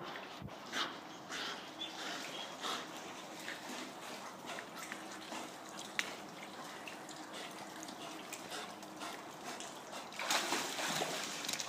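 Water splashing and trickling as a dog swims through a rocky pool, with scattered small splashes; the splashing grows louder for the last second or so as the dog comes up against the ledge.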